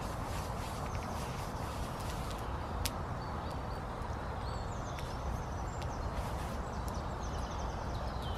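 Steady rushing background noise with a few sharp clicks, and a small bird chirping in two short runs of quick high notes.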